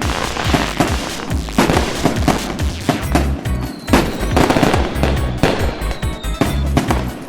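Fireworks going off in rapid bangs and crackling volleys, with music underneath. A faint falling whistle runs through the middle.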